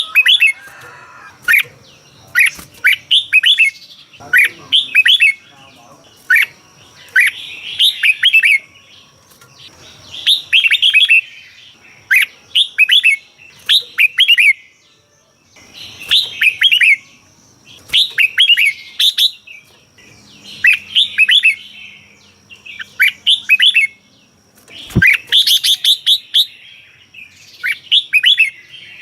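Red-whiskered bulbul singing: short phrases of quick chirping notes, repeated about once every second or so. A single sharp click near the end.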